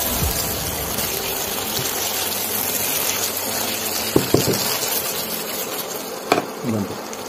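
Egg curry gravy sizzling steadily in a non-stick kadhai as a spatula stirs it, with a couple of quick spatula knocks against the pan a little past halfway and one more near the end.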